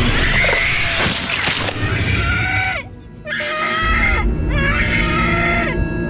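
A girl screaming: a noisy, jumbled first two seconds, then three long high cries with short breaks between them, each falling in pitch at its end, over tense film music.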